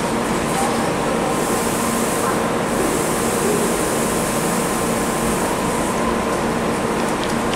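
Steady machinery noise from a Bodor T6A laser tube cutting machine running: a constant rush and hum with a faint steady whine, and a high hiss that swells and fades a few times.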